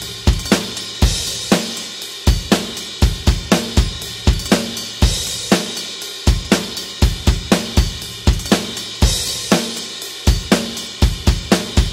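Rock drum kit playing a steady beat at 120 bpm, with kick drum, snare and hi-hat. A cymbal crash comes about every four seconds.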